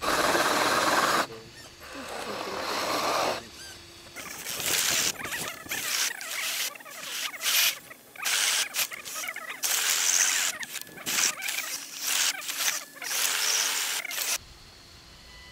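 A scale RC Land Rover Defender 90 crawler's electric drivetrain and tyres grinding and scrabbling in loose sand. It comes in repeated short, irregular bursts of throttle as the truck claws its way up a steep bank.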